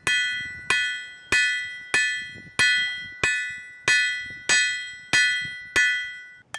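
Hand hammer striking red-hot spring steel on an anvil, held with tongs: about ten steady, evenly paced blows, roughly one every two-thirds of a second. Each blow leaves a bright metallic ring from the anvil that fades before the next. The hammering stops near the end.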